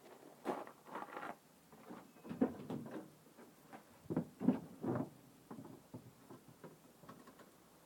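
Faint, irregular rustling and light knocks, a few dozen scattered over several seconds, with no engine running.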